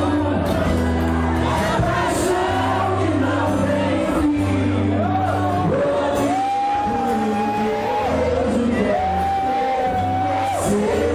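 Live band music with singing; about halfway through, a voice holds a run of long, steady notes over the band.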